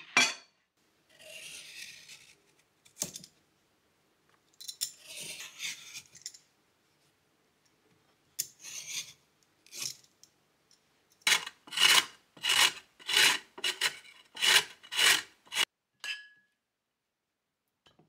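A raw carrot being grated in a run of about eight quick rasping strokes, roughly two a second, after a few softer scrapes earlier on.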